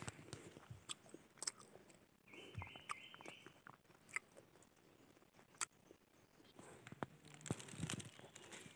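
Faint footsteps crunching on dry leaf litter and twigs, with scattered crackles and soft thuds. A brief high trill sounds about two and a half seconds in.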